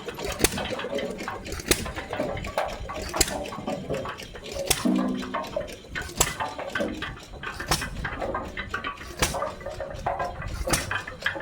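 Hit-and-miss engine running, firing with a sharp bang about every one and a half seconds, with clickety knocking from the engine between firings. It runs on a new spark plug and freshly sanded magneto contacts.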